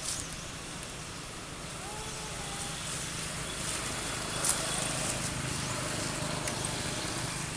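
Outdoor background noise with a steady low motor hum and faint distant voices. A brief faint call sounds about two seconds in, and a sharp click about four and a half seconds in.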